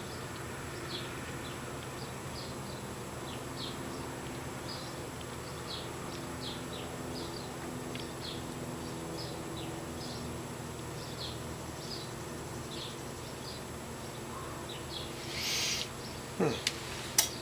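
Faint, quick rubbing strokes of a sponge eye-shadow applicator on a doll's eyelid, about two a second, over a steady low hum. A short hiss comes near the end.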